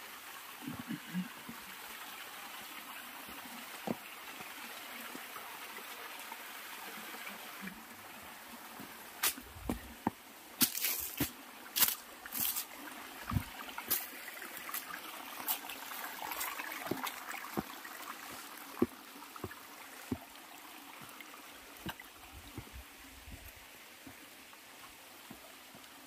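A thin stream of water trickling and splashing down rocks into a pool: a small waterfall running low, its flow weak in the dry season. A cluster of sharp clicks and knocks, louder than the water, comes near the middle.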